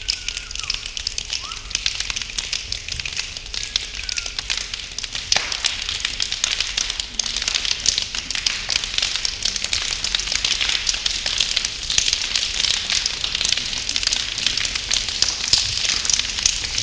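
A crowd of people making a dense patter of hand sounds, many snaps and claps overlapping into a rain-like crackle that thickens and grows louder about five seconds in.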